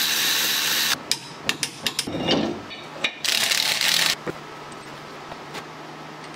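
Cordless power tool running in two short bursts, the first ending about a second in and the second about three seconds in, driving in the brake caliper bracket's mounting bolts. Light metallic clicks and clanks of parts being handled come between and after the bursts.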